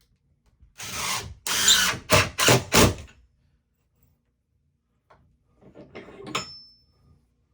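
Wood being worked by hand: about five loud rasping strokes, the first two longer and the last three short and quick, then quieter scraping and a brief high squeak.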